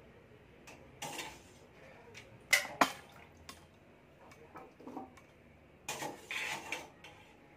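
A metal utensil clinking against a steel bowl while potato strips are fished out of ice water, with water splashing and dripping. Two sharp clinks close together, a little past the middle, are the loudest.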